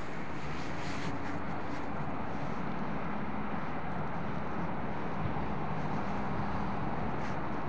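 ES1 Lastochka electric multiple unit approaching at a distance: a steady hum with faint held low tones over a wash of background noise.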